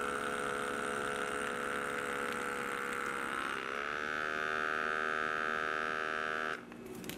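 Handheld electric vacuum sealer pump running against the valve of a reusable vacuum bag around a salami: a steady motor whine whose pitch rises a little about three and a half seconds in as the bag pulls tight. It cuts off about six and a half seconds in.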